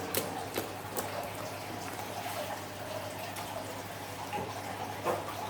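Slime being squished and mixed, making soft wet, sticky sounds with a few small clicks and pops, most of them in the first second.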